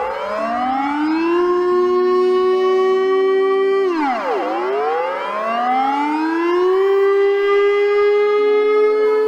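Civil defense siren sounding a two-pitch chord. It rises over about a second and a half, holds, drops sharply about four seconds in, then rises again slowly and holds.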